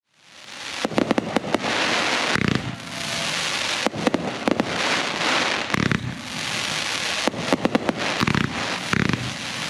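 Consumer fireworks going off in quick succession: a dense crackling hiss with many sharp bangs, fading in at the start.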